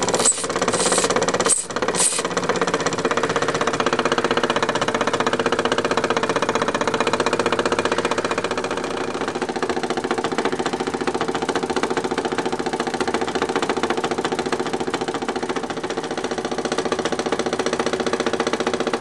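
Märklin vertical toy steam engine running steadily on live steam, with a fast, even beat from its cylinder and flywheel. A few short sharp bursts come in the first two seconds.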